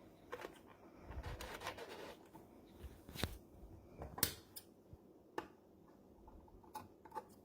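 Faint, irregular clicks and short rustles of handling, a light knock about three seconds in and a sharper click about a second later, with no steady motor running.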